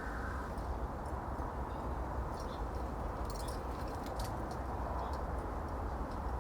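Birds feeding at a backyard feeder: scattered short, high-pitched ticks in small clusters over a steady low background rumble.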